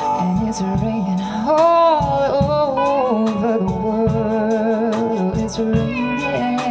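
A small band playing a slow soul ballad: drums keeping time under electric and acoustic guitars, with a held melody line that wavers in pitch through the middle.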